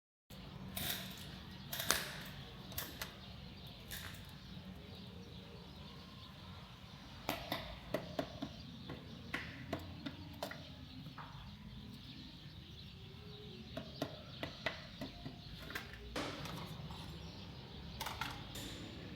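Scattered metallic clicks and knocks from tools and engine parts being handled during a bulldozer engine teardown, over a steady low hum.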